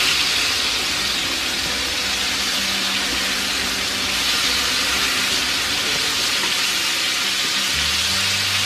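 Battered chicken pieces frying in hot oil in a skillet: a steady, loud sizzle while they are turned with metal tongs.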